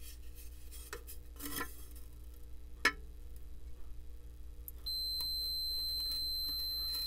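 Fluke multimeter's continuity beeper sounds one steady high tone for about two seconds near the end, as the tipping bucket gauge's reed switch closes under the magnet. Before the tone come a few short knocks as a wooden stick pushes the bucket assembly over, the loudest about three seconds in.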